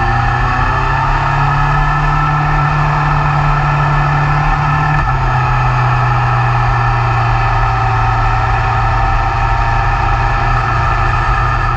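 BMW S1000R's inline four-cylinder engine running steadily on the move, with wind rushing over the microphone. The engine note steps down in pitch once, about five seconds in.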